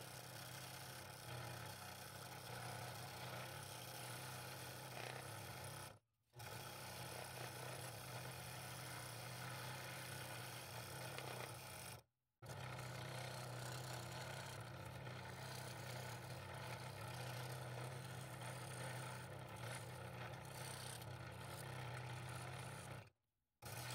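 Scroll saw running steadily with a low hum, its reciprocating blade rasping through thin wood as it cuts interior openings in a horse pattern. The sound cuts out abruptly for a moment three times.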